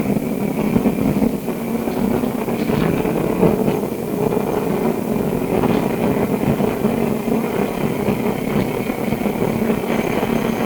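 Inside an SW5 class tram: the steady hum and rumble of its running gear, with a few faint clicks.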